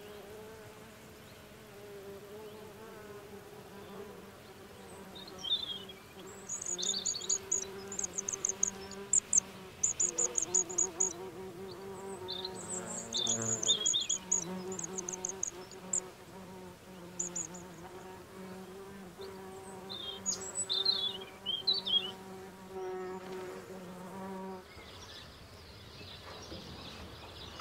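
Flying insects buzzing in a steady, slightly wavering drone, with high, thin bird chirps in quick short runs over it. The buzzing stops shortly before the end.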